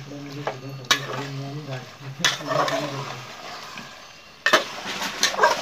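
Wooden spatula stirring chicken pieces frying in masala in a steel pot, the food sizzling, with sharp knocks of the spatula against the pot about a second in, a little after two seconds, and a louder one about four and a half seconds in.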